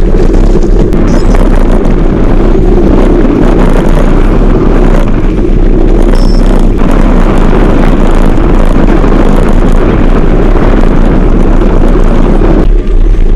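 Loud, steady wind buffeting on the microphone, mixed with the rattle and rumble of a mountain bike's knobby tyres rolling fast over a loose gravel track.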